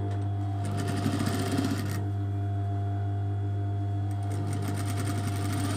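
Industrial single-needle lockstitch sewing machine stitching in two runs over a steady low hum. The first run is about a second long, starting just under a second in; the second starts a little after four seconds in.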